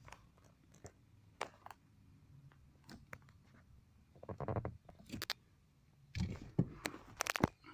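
Chevrolet Montana steering wheel scraping and clicking against the steering-column trim as it is turned, in a few short rubs: the wheel has slipped down on its adjustable column and is rubbing on the trim.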